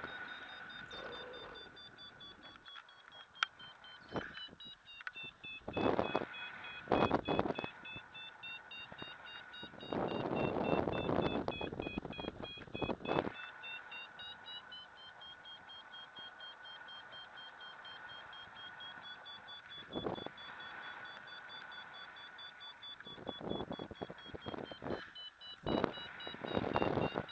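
A paragliding variometer beeping steadily in rapid pulses, its pitch sinking slightly and rising again as the climb rate changes: the tone of climbing in a thermal. Wind buffets the microphone in gusts, longest and loudest for a few seconds about ten seconds in.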